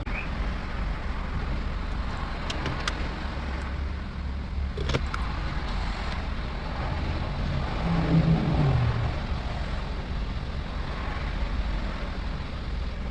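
Steady low rumble of a car, with a few light clicks and a short wavering tone about eight seconds in.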